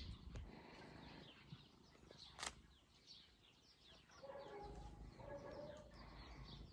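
Faint chirping of small birds: many short, quick notes sliding downward, scattered throughout. A single sharp click comes about two and a half seconds in, and a lower pitched call sounds twice in the second half.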